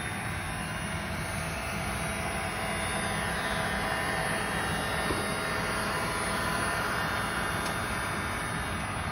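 A cheap robot vacuum running, its suction fan and motor giving a steady whir that grows a little louder in the middle and eases off near the end.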